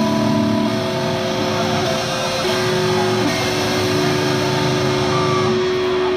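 Electric guitar played informally through a stage amplifier, a few long notes held and ringing.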